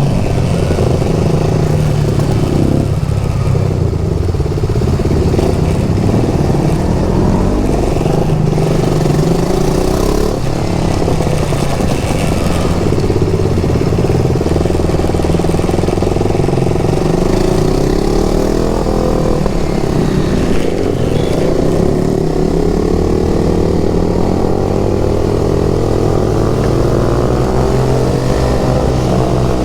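KTM RC 390's single-cylinder engine running on the move, its pitch rising and falling with throttle and gear changes, climbing steadily under acceleration a little past the middle.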